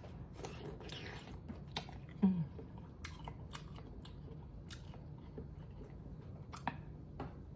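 Close-miked chewing and biting of food, with scattered wet mouth clicks, and a short hummed 'mm' about two seconds in.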